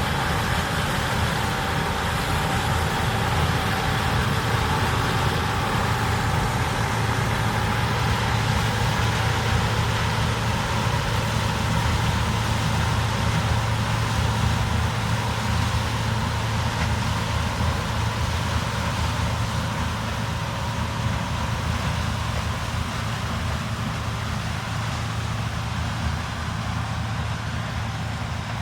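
Diesel farm machinery running steadily at constant engine speed, with a low engine hum under a broad mechanical clatter, fading slightly near the end.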